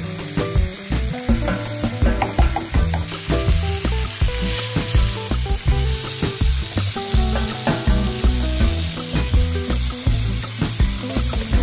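A spatula stirring a pot of broth, then, from about three seconds in, seasoned oxtail pieces sizzling as they brown in oil in a frying pan. Background music with a steady beat plays throughout.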